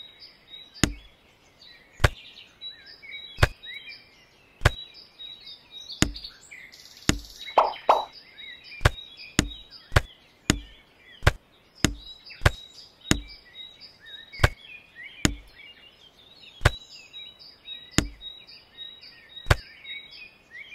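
Toy plastic carrots being set down one by one in a miniature toy trolley, each one a sharp knock. The knocks come about once a second, quicker in the middle, with faint bird chirps behind them.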